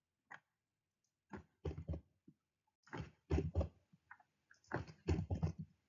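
Computer keyboard keystrokes and mouse clicks in a few short clusters while typing into an equation.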